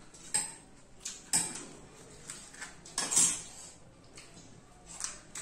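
Table eating sounds from pani puri: a few short sharp clinks and crunches as crisp puri shells are broken and filled from a steel bowl, the loudest about three seconds in.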